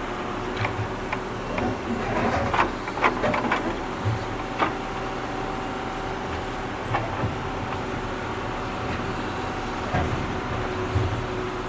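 Tractor engine running steadily while digging, with sharp metal clanks and knocks from the digging gear, several close together a few seconds in and a few more later.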